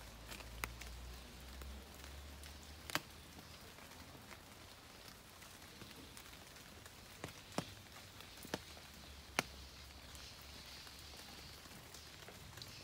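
Light rain falling steadily and faintly, with about six sharp single drip taps standing out at scattered moments.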